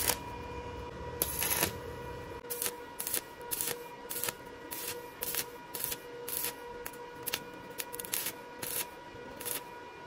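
Stick (arc) welding on a steel post: a crackling arc at the start and again a second later, then short crackling bursts about twice a second as the electrode is struck on the steel to lay tack welds. A steady hum runs underneath.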